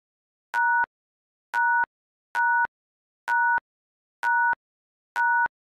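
Quiz countdown timer beeps: six identical short electronic beeps, about one a second, each two steady notes sounding together.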